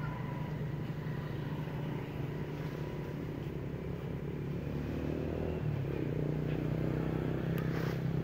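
An engine running steadily with a low drone, shifting slightly in pitch about halfway through.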